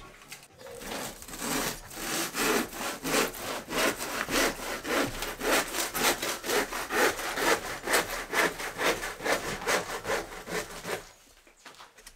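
Handsaw cutting through a cork insulation panel in steady back-and-forth strokes, about two to three a second. The sawing stops about eleven seconds in.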